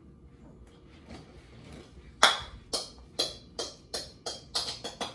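A small hard object dropped on a hardwood floor and bouncing: one loud sharp strike, then about nine more, each fainter and quicker than the last, as it settles.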